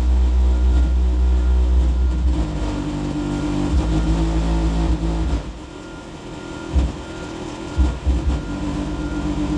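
Bass-heavy song played at high volume through a 12-inch Kicker CVR car subwoofer, the deep bass notes far louder than the rest of the music. The bass drops away briefly past the middle, then builds back up.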